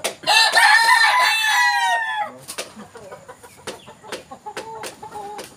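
Boston Roundhead gamecock crowing once, a loud crow of about two seconds near the start. Faint clicking from the wire cages follows.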